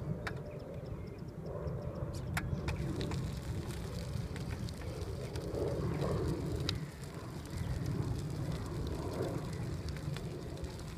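Gravel crunching under a power wheelchair's tyres as it rolls along a path, mixed with the footsteps of someone walking behind, over a steady low rumble with scattered sharp clicks.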